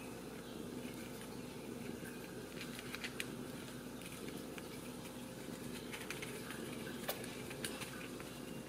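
Ragdoll kittens suckling at their mother: soft, scattered wet clicks and smacks over a steady low hum.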